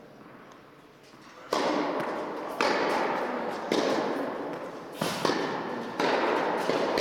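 Tennis ball struck back and forth with rackets in a rally, sharp hits about once a second starting about a second and a half in, each ringing on in the echo of a large indoor tennis hall.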